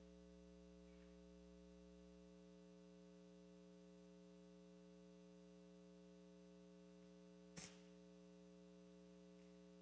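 Near silence with a steady electrical mains hum, and a single brief knock about three quarters of the way through.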